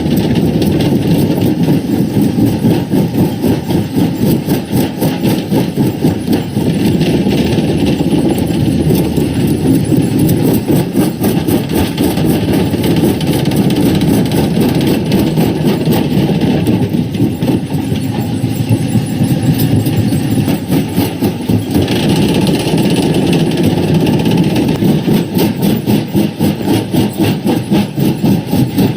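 Primary rock crusher running: a steady heavy machine drone with a fast, continuous clattering pulse that grows more marked near the end.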